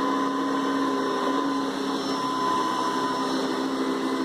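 Hoover Decade 800 upright vacuum cleaner running steadily, its motor and fan giving a high, even whine over lower tones. Its pitch starts to fall as it is switched off at the very end.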